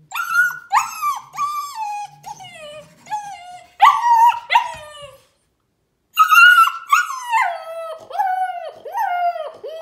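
Husky puppy howling and crying in a string of high, falling whines, with a pause of about a second in the middle, then louder, longer howls that turn into quick, shorter cries near the end. It is protest crying at being shut in a playpen.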